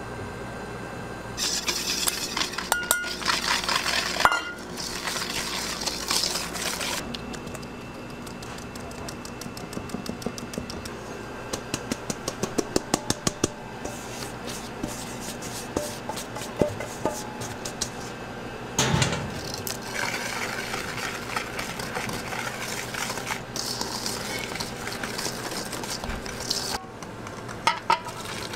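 A wire balloon whisk beating egg yolks in a stainless steel mixing bowl: its wires scrape and swish against the metal, with runs of quick clicking ticks, about five a second, as they strike the bowl's side. One heavier metal knock comes about two-thirds of the way in.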